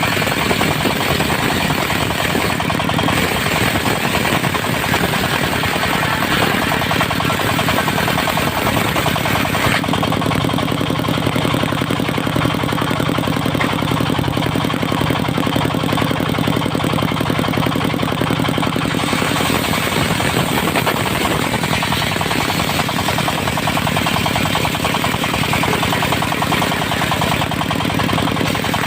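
Diesel engine of a portable circular sawmill running steadily with a rapid knocking beat. For about ten seconds in the middle its sound turns lower and steadier, with less hiss on top.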